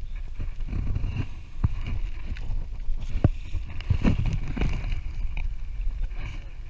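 Wind on the microphone and small waves slapping against the hull of a small skiff, with a few short sharp knocks along the way.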